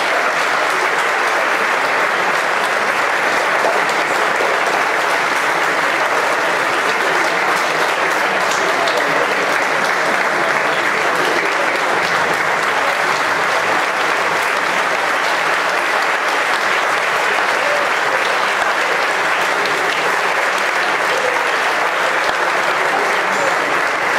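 Audience applauding steadily: a dense, even clapping that holds at one level throughout.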